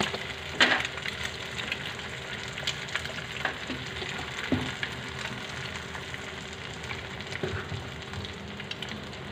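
An egg frying in oil on a flat pan: a steady sizzle with scattered small pops, and one sharp tap about half a second in.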